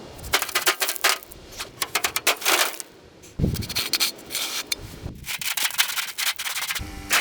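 Irregular scraping and rubbing mixed with many quick clicks and knocks, with two heavier thumps in the middle. A steady machine hum starts near the end.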